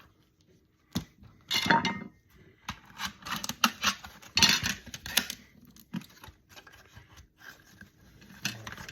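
Hand tools and metal parts clinking and clattering in irregular knocks and short scrapes as an electronic unit is pried apart and its circuit board removed.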